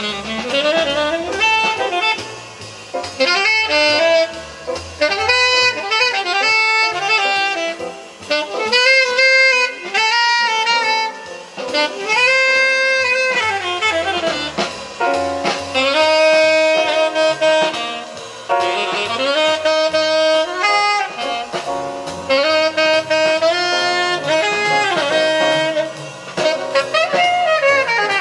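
Jazz music with a lead saxophone playing a sliding, bending melody over a walking bass line.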